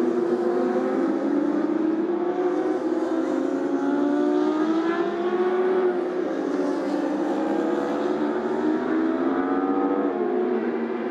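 Racing motorcycle engines running on the circuit, several at once, their pitch rising and falling as the bikes accelerate and pass.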